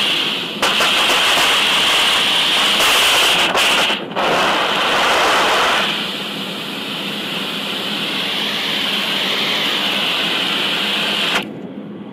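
Wet compressed-air foam (CAFS) discharging from a handline's 15/16-inch smoothbore tip: a loud steady hissing rush with two brief breaks, near the start and about 4 seconds in. It turns softer about 6 seconds in and stops abruptly about 11 seconds in.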